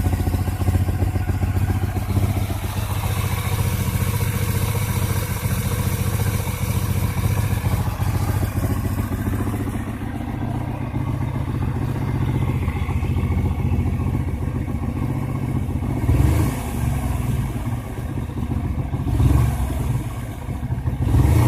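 Hyosung GT250R's 250 cc V-twin running steadily at idle after a piston replacement, now without the piston-slap clatter against the cylinder wall. The throttle is blipped briefly about three times in the second half.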